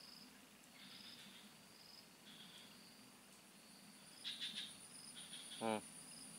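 Faint insects: a steady high-pitched whine with chirping trills now and then. A short low voice-like sound comes near the end.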